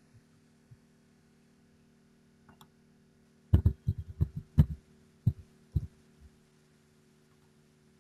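Computer keyboard keys and mouse buttons clicking: a quick run of about eight sharp clicks starting about three and a half seconds in and lasting under three seconds, over a steady low hum.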